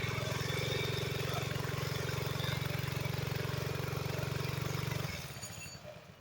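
Gas-powered two-man post hole auger engine running steadily while drilling, then cutting out about five seconds in and winding down as the auger hits a rock.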